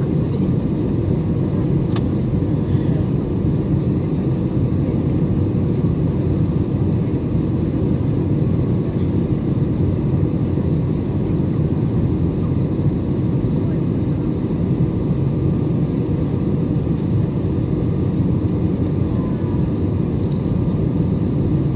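Steady cabin noise of a jet airliner descending on approach to land: engine and airflow noise heard from a window seat, an even low rumble that holds at the same level throughout.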